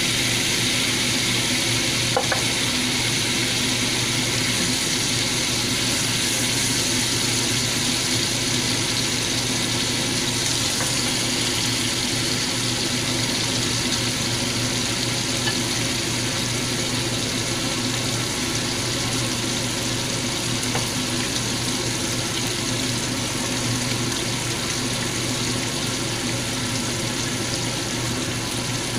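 Beef steaks sizzling steadily as they fry in butter in a nonstick pan, with one short click about two seconds in.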